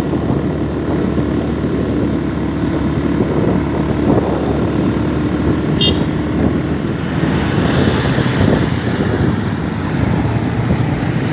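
A motor vehicle's engine running steadily with road and wind noise, and one brief click about six seconds in.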